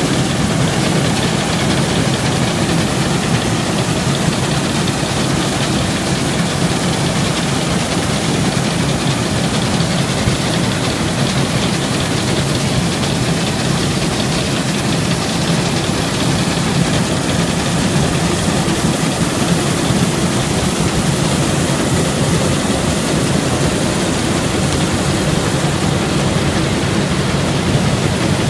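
Massey Harris 726 combine harvester at work, its engine and threshing machinery running together in a steady, loud mechanical din with a constant low hum.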